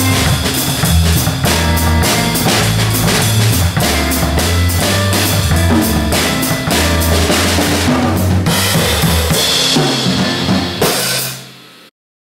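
Jazz drum kit played with sticks (snare, bass drum and cymbals) along with a backing track that has a bass line. The tune ends on a final hit about eleven seconds in, which rings briefly before the sound cuts off.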